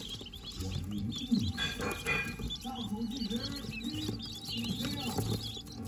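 A brood of twelve-day-old king quail (button quail) chicks peeping: many short, high chirps overlapping all the time, over a lower murmur.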